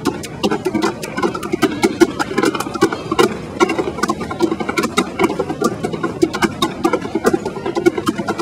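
Tap shoes striking portable wooden boards in a rapid, uneven clatter of taps, several a second.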